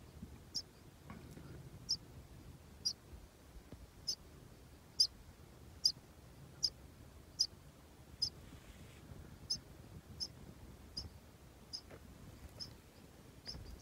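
Snow buntings calling with short, high chirps, about one or two a second.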